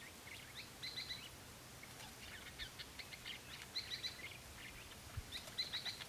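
Pileated parrots calling: short, high chirping notes given in quick clusters, several bursts in a row.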